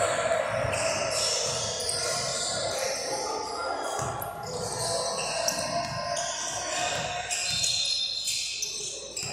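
A basketball bouncing on a hardwood gym floor, a series of irregular thuds, with indistinct voices in the background.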